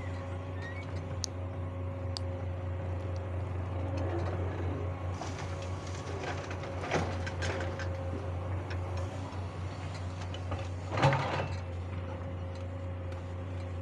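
Komatsu hydraulic excavator's diesel engine running steadily under load, with a rattle of soil and clods tipping into the steel bed of a dump truck a few seconds in, and one loud clank near the end.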